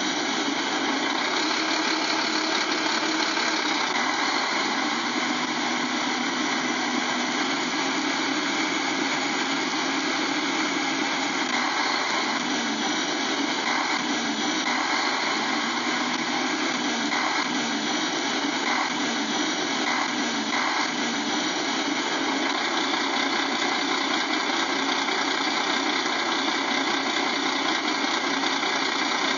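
Steady engine idling sound, thin and without deep bass, running evenly throughout.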